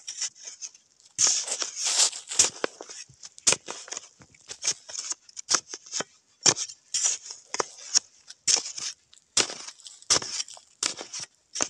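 A metal digging blade stabbing and scraping into dry, crumbly soil, with short sharp strikes about once or twice a second and loose dirt crunching and trickling between them.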